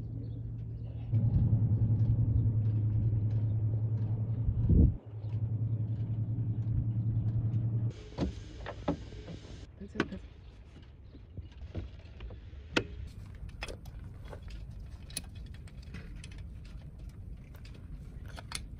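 A motor running with a steady low hum that gets louder about a second in, surges briefly near five seconds and cuts off at about eight seconds. After that, scattered clicks and light metallic knocks of hand tools working on an outboard's lower unit.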